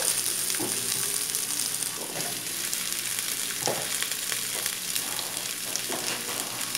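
Diced vegetables sizzling as they go into hot olive oil in a pressure-cooker pot. The frying hiss is steady, with several knocks as the carrot pieces land.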